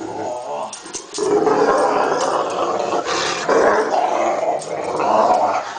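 Great Dane growling in play while wrestling with a person: long, rough growls with short breaks between them.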